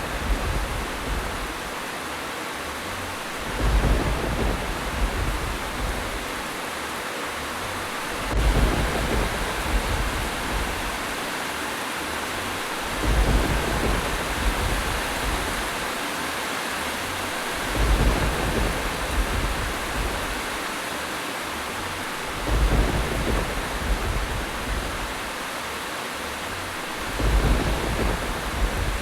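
Steady heavy rain hiss with low thunder rumbles that swell up about every four to five seconds, six times, at very even spacing.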